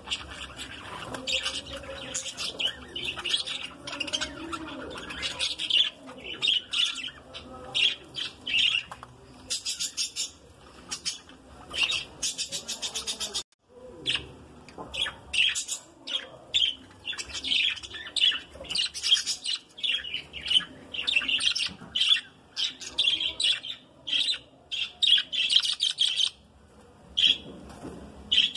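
A flock of budgerigars chirping and chattering in rapid, overlapping calls, with a brief break about halfway through.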